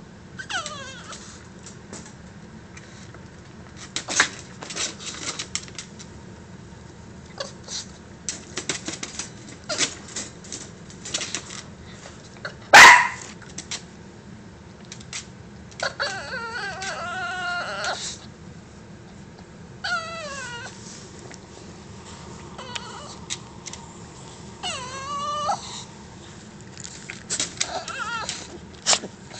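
Small dog crying in a run of wavering whines that slide down in pitch, sounding like a real baby, with one short, very loud cry about halfway through. Scattered clicks fall between the cries.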